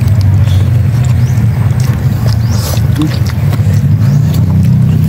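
A steady, loud low drone, engine-like or wind-like, with scattered faint clicks over it.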